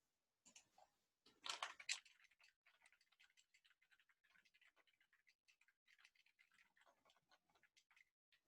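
Faint, rapid clicking of typing on a computer keyboard, with a louder flurry of clicks about one and a half seconds in.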